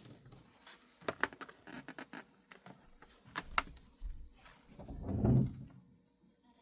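Small clicks and taps of handling as wires are hooked up to a small model-railroad test track, with a louder muffled rustle about five seconds in.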